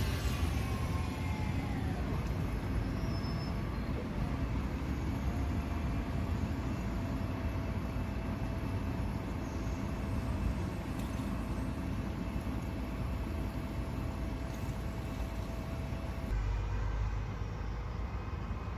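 Low-floor articulated tram rolling slowly towards the listener, a steady low rumble with a thin steady whine over it for much of the time; the rumble grows louder near the end as it draws closer.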